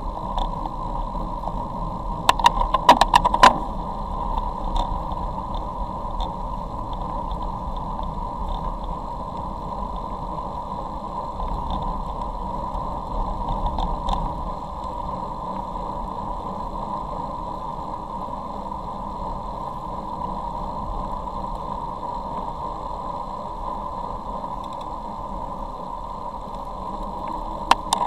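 Wind and road noise picked up by a camera riding along with road bicycles on a wet road: a steady rush, with a short run of sharp rattling clicks about two to three seconds in and again at the very end.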